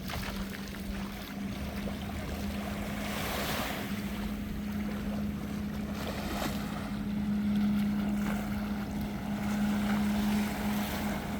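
A steady low motor hum over wind on the microphone and the wash of water, a little louder in the second half.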